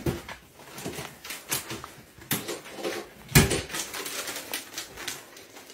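A small bag of cat treats being shaken and crinkled to lure kittens: irregular rattling clicks and rustles, with one louder knock a little past halfway.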